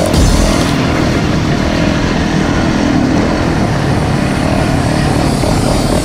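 Dirt bike engine running while the bike is ridden, buried in a steady, loud rushing noise.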